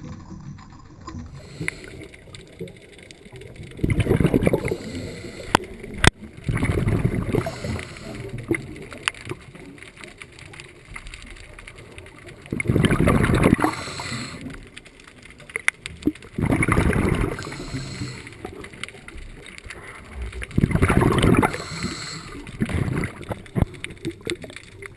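Scuba regulator exhaust bubbles heard underwater: a diver's exhaled breath bubbling out in five loud bursts about a second long, several seconds apart, over a low steady wash with scattered sharp clicks between.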